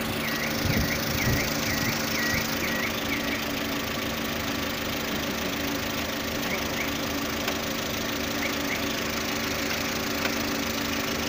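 Car engine idling steadily after a major overhaul, with the hydraulic lifters knocking. A short high chirp repeats about three times a second for the first three seconds, with a few more later.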